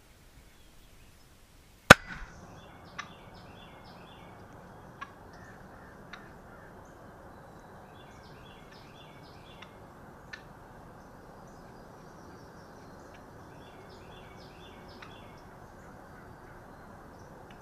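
A single shotgun shot about two seconds in, by far the loudest sound. Bird calls follow in several bursts of quick chattering notes, with a few sharp knocks in between and a steady outdoor hiss.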